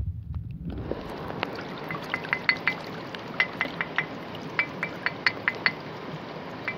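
A flat river stone being struck in quick, irregular taps, each giving a sharp click with a short bright ring, as it is tested for its tone for a stone lithophone. Under it a stream rushes steadily, starting about a second in.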